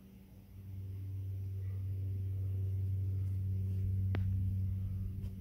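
A steady low hum with a clear pitch, growing louder over the first couple of seconds and then holding; a single faint click about four seconds in.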